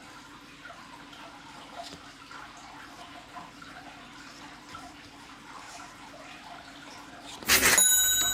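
Faint rustling and small clicks of booster-pack and card handling, then near the end a sudden sharp hit followed by a bright, bell-like ding that rings on and fades.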